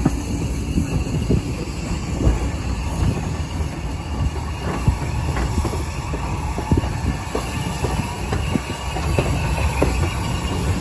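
Train running on the heritage line: a steady rumble of wheels on rails, with scattered knocks and clicks from the track.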